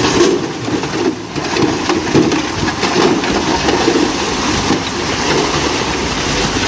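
Dump truck with its bed tipped up, engine running, as a load of rocky soil and stones pours out and tumbles onto a pile: a dense, crackly rumble.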